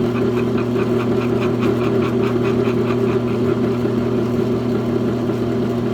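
Electric machine-tool motor running steadily, with a rapid light ticking of about five a second over the hum that fades out about halfway through.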